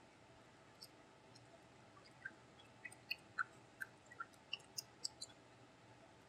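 Faint wet clicks and squelches from fingers kneading white glue and water in a plastic container, about a dozen in quick succession in the middle.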